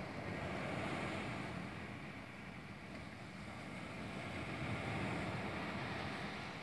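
Small sea waves breaking and washing on a shingle beach, with wind rumbling on the microphone; the surf swells about a second in and again around five seconds.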